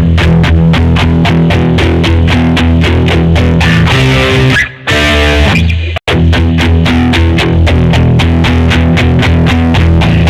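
Schecter Omen 6 electric guitar played through a distorted effects patch: a fast riff of rapidly repeated low picked notes. It breaks off briefly about halfway through, then stops dead for an instant and picks straight back up.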